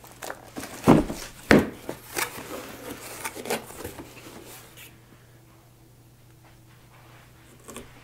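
Cardboard box of a Dyson stick vacuum being slid open and its flap lifted: two dull thumps about a second in, then scraping and rustling of cardboard that dies away after about five seconds.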